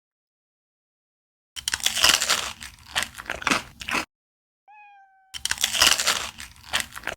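Close-up crunching of crisp food being bitten and chewed, in two bursts of a couple of seconds each that start and stop abruptly. A brief steady tone sounds between them.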